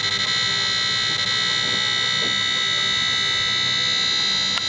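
Escort Passport 8500 radar detector sounding its alert as one steady, unbroken, high-pitched whistle: it is warning of police radar.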